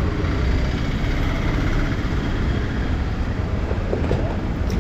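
Steady motor-vehicle noise, an even low rumble and hiss with no distinct events.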